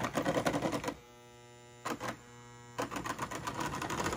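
Lionel 2056 Hudson toy steam locomotive running on three-rail track, its motor and wheels making a rapid, busy clatter. About a second in it stops for under two seconds, leaving only a steady electrical hum with one short clatter in the middle, then it starts running again.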